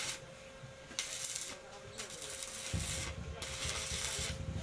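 Rhythmic rasping, scraping strokes, each about half a second to a second long with short pauses between. A low rumble joins in about three seconds in.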